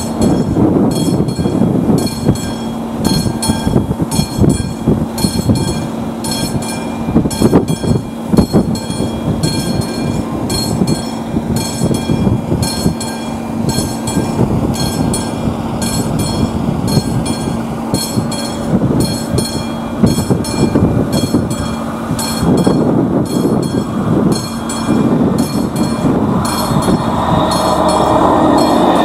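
A level crossing's classic electromechanical warning bell ringing in steady, evenly spaced strokes. Under it, an approaching passenger train rumbles, growing louder in the last few seconds.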